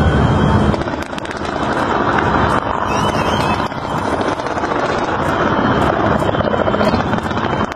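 Large fireworks display going off: a dense rumble of bursts with fast crackling throughout. The heavy low boom of the opening eases under a second in.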